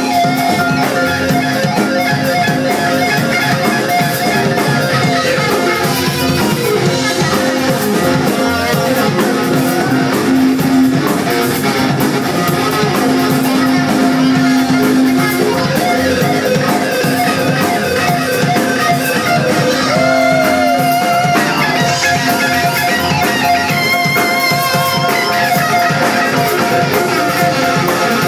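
Live band music with guitar to the fore over a steady band backing, including a bent note about two-thirds of the way through.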